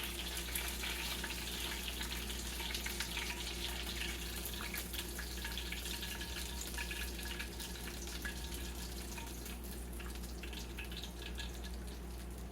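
Hot oil sizzling and crackling in a skillet as pieces of breaded fried chicken are lifted out, the crackling thinning out towards the end, over a steady low hum.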